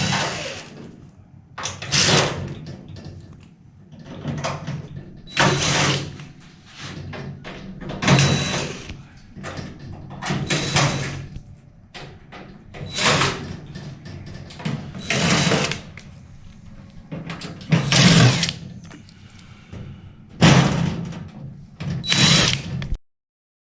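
Power drill running in short bursts about every two and a half seconds, driving out the screws that hold an electric fireplace's back panel.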